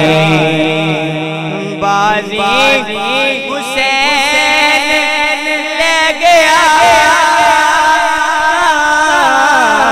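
Male voice singing a Punjabi naat into a microphone over a PA, drawing the words out in an ornamented, gliding melodic run. A long held note fills the second half.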